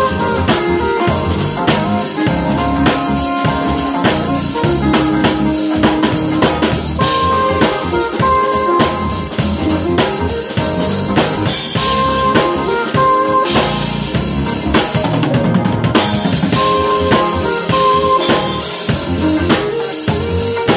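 A small live band playing: a drum kit keeps the beat under keyboard, with a saxophone playing at times.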